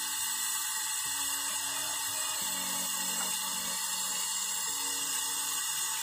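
Gas brazing torch flame hissing steadily as it heats copper pipe joints at a refrigerator compressor during re-brazing.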